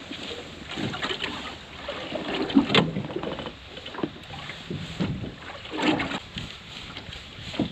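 Choppy sea water slapping and sloshing against the hull of a small drifting skiff, with wind buffeting the microphone and a few irregular knocks, the loudest a little before 3 s and near 6 s.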